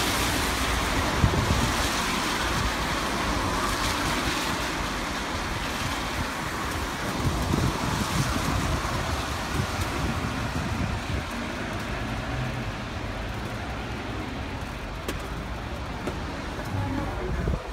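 Road traffic: cars passing on a wet road, a steady wash of tyre and engine noise, with wind buffeting the microphone. It grows somewhat fainter toward the end.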